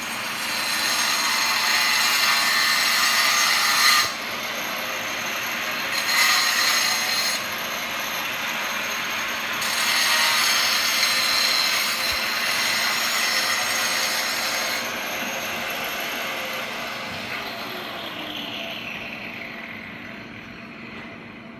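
Makita power tool cutting tile: a high whine over harsh grinding noise, louder in stretches as the blade bites into the tile. Over the last several seconds the motor winds down with a falling pitch.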